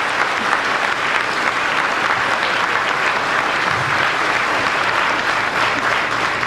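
Large indoor crowd applauding steadily, a dense continuous clapping.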